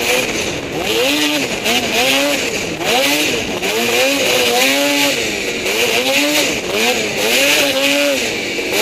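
Race snowmobile's two-stroke engine revving up and falling back over and over, about once a second, as the throttle is worked through a snowcross track's bumps, with a steady rush of noise underneath.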